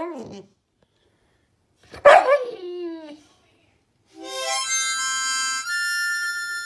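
Cane Corso puppy gives a drawn-out yowl that slides down in pitch: the tail of one at the very start, then a second one about two seconds in. About four seconds in a short music sting of a few held notes, stepping in pitch, plays over it.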